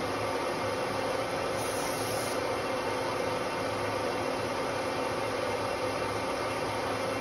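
Metal lathe running steadily, spinning a large electric motor armature during commutator turning: an even hiss with a steady hum.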